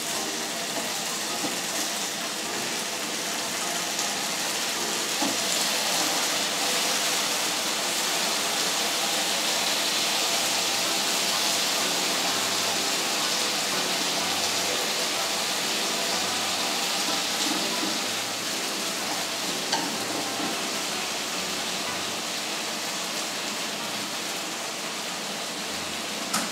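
Bacon frying in a skillet: a steady sizzle, with a few light taps as the strips are turned with chopsticks.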